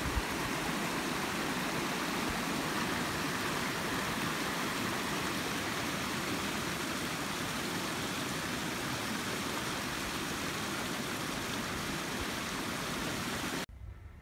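Small mountain stream running over rocks, a steady rush of water that cuts off abruptly near the end.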